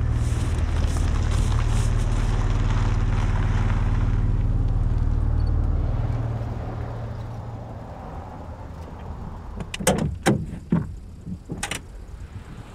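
A motor vehicle's low rumble that fades away over a couple of seconds, followed near the end by a few sharp clicks and knocks.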